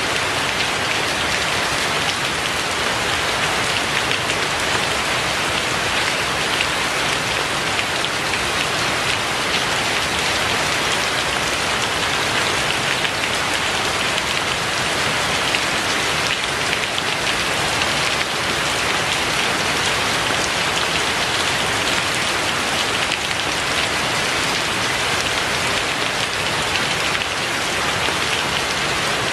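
Steady rain falling and pattering on surfaces, a continuous even hiss without a break.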